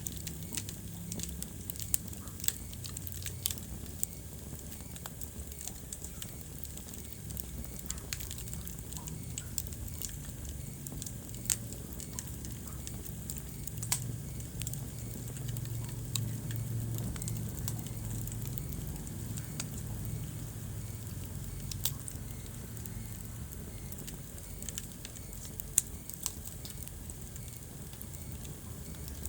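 Wood fire burning in a fireplace, crackling and popping irregularly over a low steady rumble of the flames, with a few sharper pops standing out.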